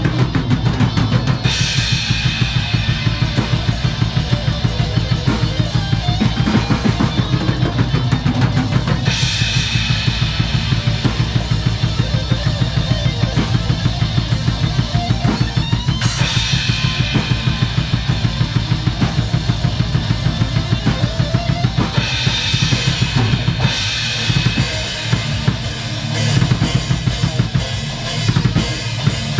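Acoustic drum kit played hard in a fast metal groove, with bass drum and snare keeping a steady pulse of about four strokes a second under crashing cymbals. The cymbal pattern changes every few seconds, and the beat breaks into fills near the end.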